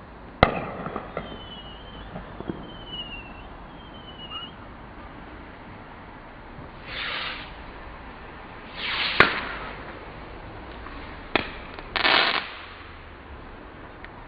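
Fireworks going off: a sharp bang about half a second in, followed by a few falling whistles, then hissing bursts and more bangs around nine and eleven seconds in, with a crackling burst near the end.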